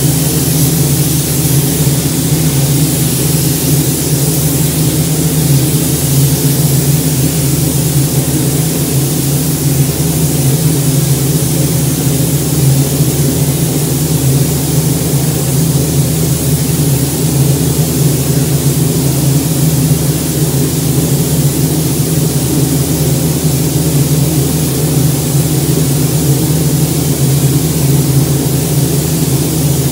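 Steady hum and even air hiss of a spray-paint booth's ventilation, unchanged throughout.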